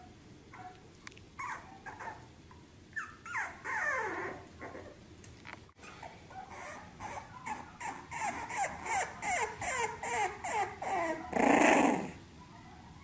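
Bulldog puppies whimpering and whining, each cry falling in pitch. A longer falling whine comes a few seconds in, then a run of short cries about twice a second, ending in one loud, rough cry near the end.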